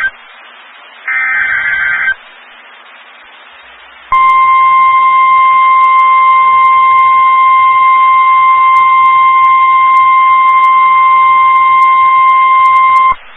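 Emergency Alert System SAME header: two short, harsh, buzzing digital data bursts about a second apart. About two seconds later comes a single steady alert tone, the NOAA Weather Radio 1050 Hz warning alarm, held for about nine seconds before it cuts off. The sequence signals that a new warning is about to be read.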